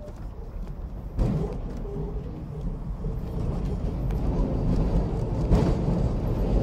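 Sydney tram C 29, an 1898 Hudson Bros electric tram, rolling along the rails with a low rumble and rattle; a knock comes about a second in, after which it grows louder, and there is another clank near the end.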